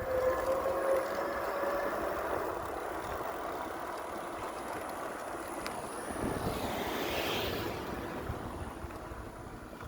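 Wind and road noise while riding an electric fat-tire bike, with a faint steady whine in the first two seconds. A car drives past about six to eight seconds in, swelling and then fading.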